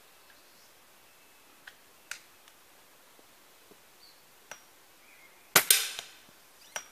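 A single shot from a regulated, shrouded BSA Ultra SE .177 pre-charged air rifle about five and a half seconds in: a sharp crack, a second crack right after it, and a short ringing tail. A few small clicks and ticks come before it.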